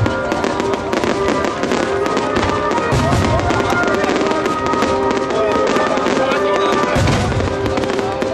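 Fireworks show: shells bursting and crackling over music played through the venue's loudspeakers, with deep booms about three seconds in and again near the end.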